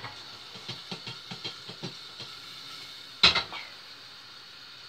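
Cookware being handled on a gas hob: a run of light taps and clicks, then one loud clank with a short ring a little past three seconds in.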